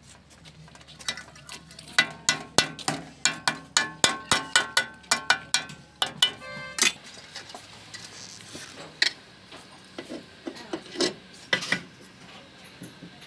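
Hand tools working on metal: a run of sharp metallic clicks and knocks, about three a second and each leaving a short ringing note, then a quick rattling run about seven seconds in, then scattered single knocks.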